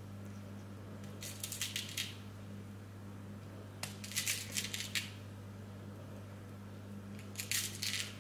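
Small amethyst crystal chips clicking and rattling against each other and the plastic as fingers pick through a compartment of a plastic organiser box, in three short bouts.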